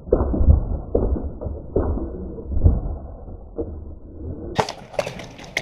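Muffled, slowed-down playback of a series of deep, irregular thumps, then about four seconds in the sound returns to normal with several sharp cracks of airsoft gunfire.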